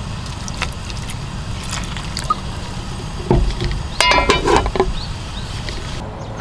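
Water pouring from a plastic bottle into a camping pan of scorched rice on a portable gas burner. There is a knock about three seconds in, then a short clatter with a metallic ring as the pan's lid is set on.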